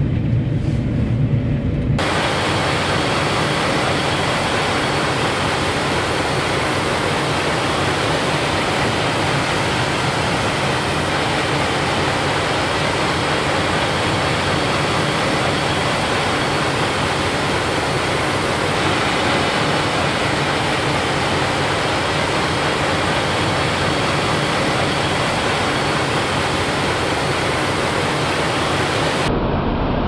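Steady hiss and whine of a camera drone's propellers, with faint high motor tones, taking over from a low engine rumble about two seconds in and cutting back to a duller rumble just before the end.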